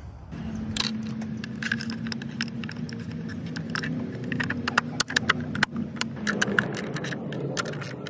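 Ratchet with a 10 mm socket clicking and metal tools clinking while the bolts on the ignition coil cover are run back in, the clicks coming irregularly and thicker in the second half. A steady low hum runs underneath.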